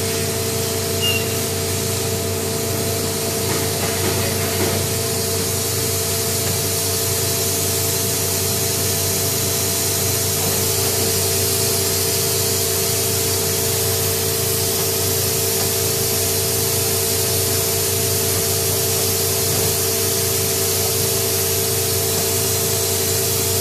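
Steady machine noise: a constant mid-pitched whine and a low hum over an even, bright hiss, unchanging in level.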